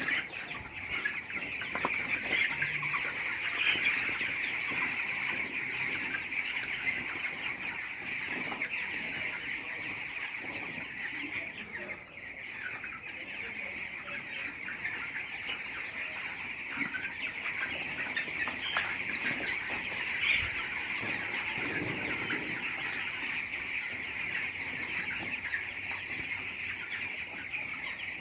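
A large flock of young chickens in a poultry house, cheeping and clucking steadily all together.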